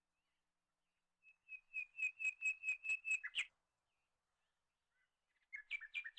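A bird singing: a quick run of about ten clear whistled notes on one pitch, ending in a slurred note. After a pause comes a second phrase of notes alternating between two pitches.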